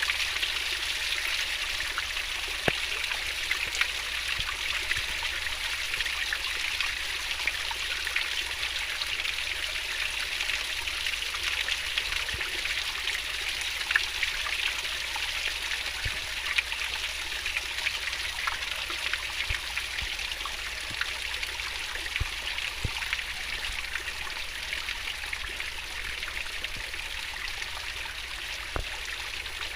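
Fast-flowing stream babbling over its bed: a steady rushing hiss with small splashes and drips scattered through it.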